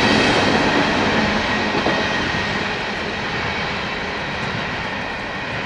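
Steel wheels of loaded coal hopper cars rolling over the rails as the end of the train passes, the noise slowly fading as the last car moves away.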